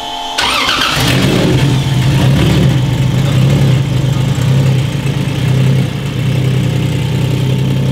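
A freshly built Toyota 1.5JZ inline-six (1JZ head on a 2JZ block, naturally aspirated) catches about half a second in on its second start, then runs steadily with slightly wavering revs. It sounds really good, with no rod knock.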